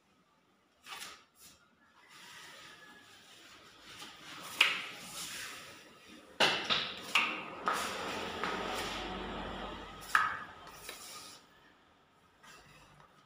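Putty knife and trowel scraping skim coat across a plastered wall, a rasping smear broken by several sharp clicks and knocks of the blades against the wall and each other, busiest from about four seconds in to ten.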